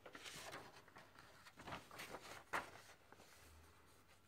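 Faint rustling of paper sheets as the pages of a printed report are handled and turned, a few short strokes with a sharper one about two and a half seconds in.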